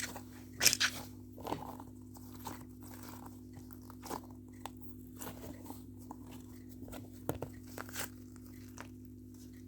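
Stress balls and fidget toys being handled and squeezed: scattered soft crunches and taps, thickest in the first couple of seconds, over a steady low electrical hum.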